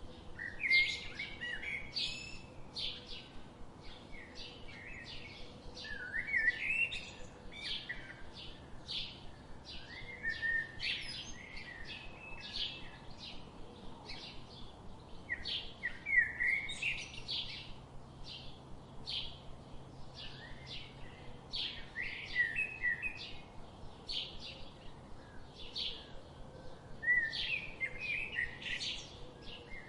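Birds singing and calling: a steady run of short, high chirps, with a lower warbling phrase every few seconds.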